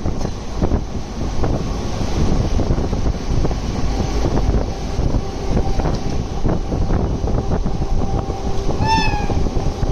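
Passenger coaches running at speed, wheels clicking irregularly over rail joints under a steady rumble, with wind on the microphone. About nine seconds in there is one short, slightly falling toot.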